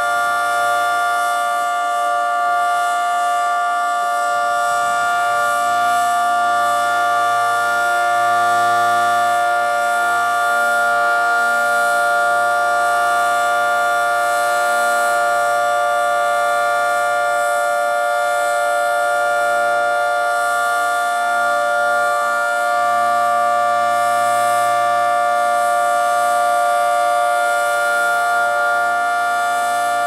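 Federal Signal 2T22 dual-tone civil defense siren sounding a steady alert, its 10- and 12-port rotors holding a constant two-note chord at full speed.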